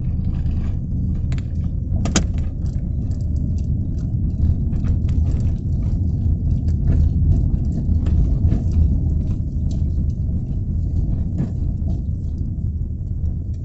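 Light rain outdoors: a steady low rumble with many scattered sharp ticks and taps, one louder tap about two seconds in.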